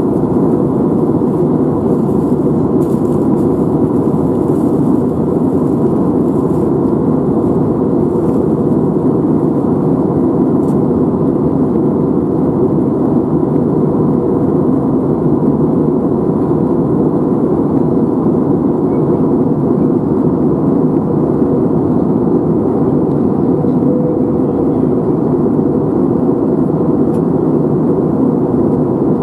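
Aircraft cabin noise: a steady, loud drone of engines and airflow heard from inside the plane, with a faint steady tone in it.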